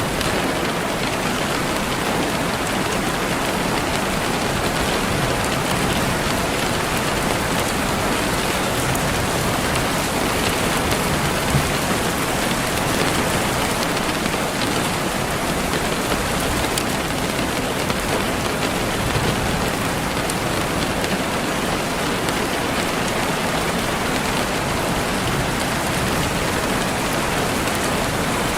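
Steady, even rain falling on a surface, a dense patter of raindrops.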